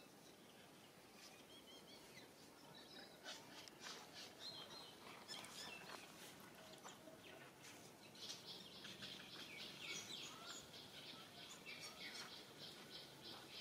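Faint outdoor ambience with small birds chirping. From about eight seconds in, a rapid, steady run of high chirps begins.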